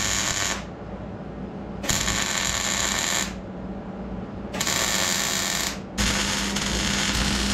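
Electric welding arc crackling in four bursts with short pauses between them, the last burst the longest: a seam being stitch-welded in car body sheet steel.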